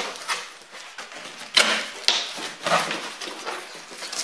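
Cardboard box flaps and a loose cardboard sheet being folded back and pulled aside, rustling and scraping in a string of irregular bursts, the louder ones in the middle.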